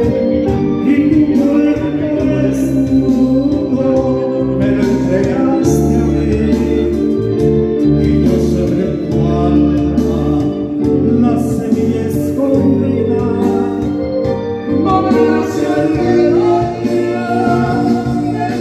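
A man singing live into a microphone over amplified music, with sustained bass notes that change every second or two.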